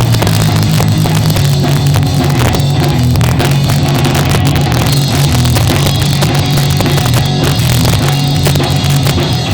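Live ska band playing at full volume, drum kit and guitar over a heavy bass line, recorded from the audience with poor, crowded sound.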